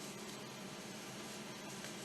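Steady low background hiss of room noise, with no distinct sound event.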